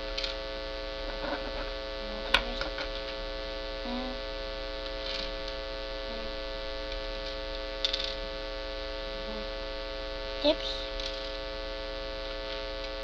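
Steady electrical mains hum, with a few sharp clicks and taps of small plastic Beyblade parts being handled, the loudest about two seconds in.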